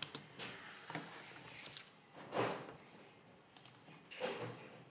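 Faint clicks at a computer, about five short ones spread out, with a few soft rustling swells between them.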